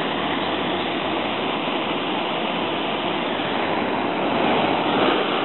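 Butane torch lighter's jet flame hissing steadily as it lights a magnesium ribbon fuse.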